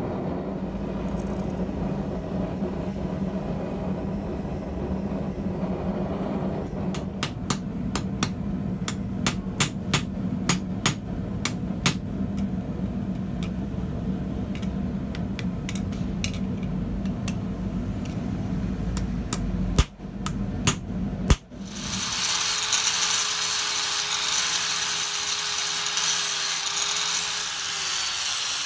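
A forge burner runs steadily. About seven seconds in comes a run of light hammer blows, roughly two a second, tightening the hot rivets on a copper and steel spatula. After two sharp knocks the forge sound stops, and an angle grinder starts up and runs steadily against the spatula.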